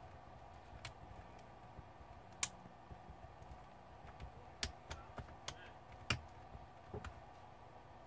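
Scattered small sharp clicks and taps of tweezers on a laptop's internal plastic connector as a fragile ribbon cable is worked loose from it. The loudest click comes about two and a half seconds in, and a cluster of clicks follows a little past halfway.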